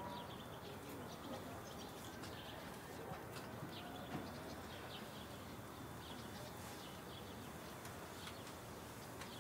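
Faint birds chirping, with many short scattered calls over a steady low hiss.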